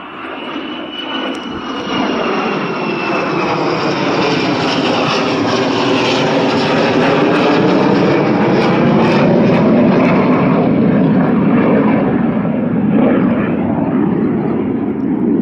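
Military jet flying low overhead: its engine noise builds over about two seconds to a loud, steady rush, with a high whine sliding slowly down in pitch during the first few seconds.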